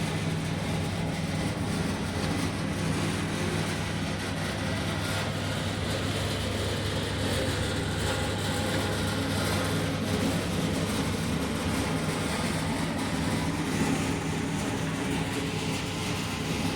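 Agarbatti (incense stick) dough mixer machine running steadily, a continuous low machine hum with a mixing rumble over it.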